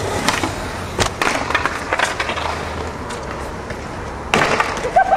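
Skateboard wheels rolling on concrete, with several sharp clacks of the board hitting the ground; the loudest comes a little past four seconds in.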